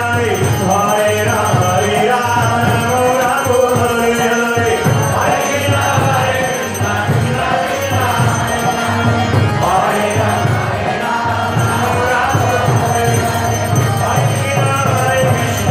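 Kirtan: a group of voices chanting a devotional mantra to music, over a steady low drumbeat about twice a second.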